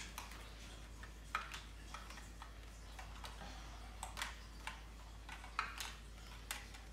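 Light, irregular clicks and taps of plastic toy doctor-kit instruments being handled, about a dozen over a few seconds.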